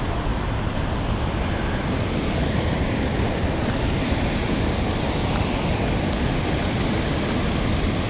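Loud, steady rush of water released through a dam's floodgates, an even noise with no let-up.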